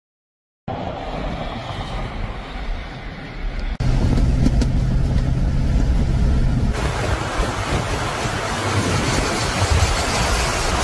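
Strong wind buffeting the microphone, with a vehicle's engine humming underneath. It cuts in abruptly after a moment of silence, jumps louder about four seconds in, and the wind hiss swells in the second half.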